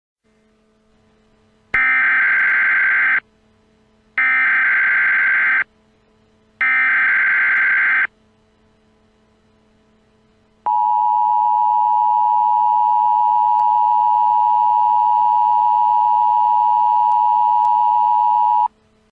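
Emergency Alert System SAME header: three loud bursts of warbling digital data tones, each about a second and a half long. After a pause comes the EAS two-tone attention signal (853 and 960 Hz), a steady shrill tone held about eight seconds, announcing a new alert.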